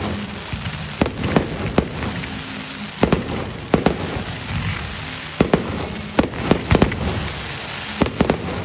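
Fireworks display: irregular sharp bangs of shells bursting, about one to three a second, over a continuous crackle.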